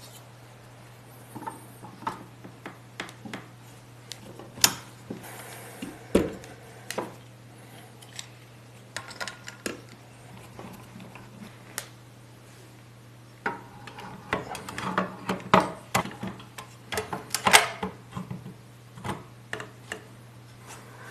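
Irregular light clicks and clinks of small hard parts being handled, coming thicker in the last third, over a steady low hum.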